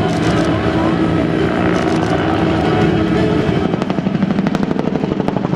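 Bell AH-1 Cobra helicopter in flight, its turbine and two-bladed main rotor running steadily. From a few seconds in, the rotor's blade slap comes through as a rapid, even chop.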